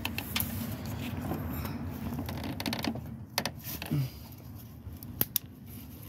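Plastic coolant hose connector being worked onto the engine's water neck by gloved hands: rubbing and small clicks, then two sharp clicks a little after five seconds in as it clips on.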